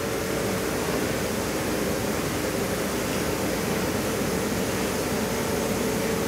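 Steady rushing noise with a constant mid-pitched hum from the laser bandsaw rig's equipment running while the laser cuts through thin wood.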